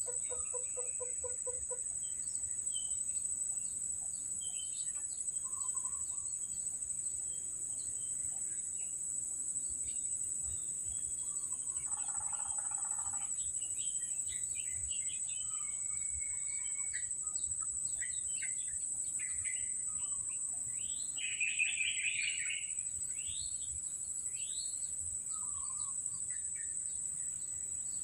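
Wild birds calling over a steady, high-pitched insect drone. A rapid pulsing call runs through the first two seconds, a lower call comes about twelve seconds in, and the loudest is a burst of quick chirps a little past twenty seconds.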